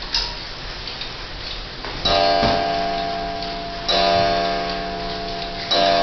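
D&A cabinet pendulum wall clock striking, three strokes about two seconds apart, each ringing on and fading, with the clock ticking underneath. A light click sounds just after the start.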